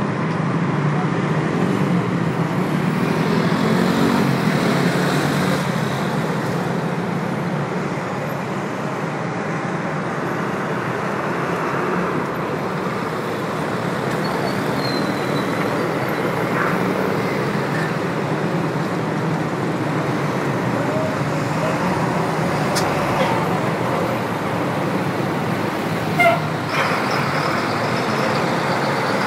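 Steady noise of busy city road traffic, with cars, buses and trucks passing on a multi-lane avenue. A brief horn toot sounds near the end.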